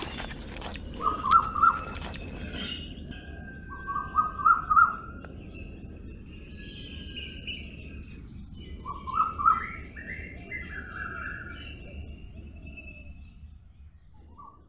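Llama giving short, shrill calls in quick groups of two to four, repeated several times, the last group rising in pitch, over a low outdoor rumble that fades near the end.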